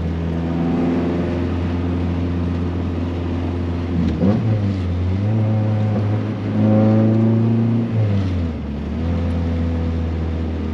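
G23BK four-cylinder engine heard from inside the car through a loud exhaust, pulling under way; its revs jump up about four seconds in, hold, and fall again just after eight seconds, as at a gear change.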